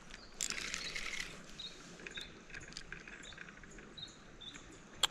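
Small birds chirping faintly in short high notes through a quiet riverside ambience, with a brief rushing hiss about half a second in and a sharp click near the end.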